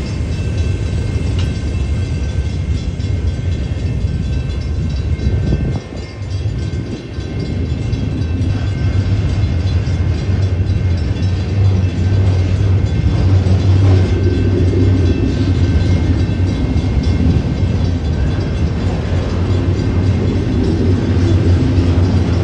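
Union Pacific autorack freight cars rolling past, a steady low rumble of steel wheels on the rails, growing louder about eight seconds in.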